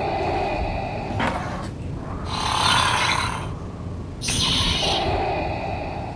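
Darth Vader's respirator breathing sound effect: slow, hissing mechanical breaths, in and out in turn.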